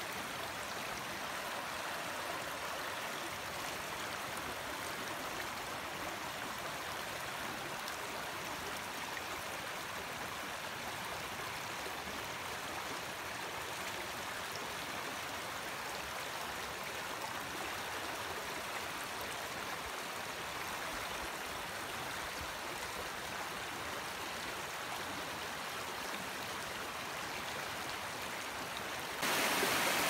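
Running water of the Mississippi River rushing steadily. Just before the end it suddenly gets louder.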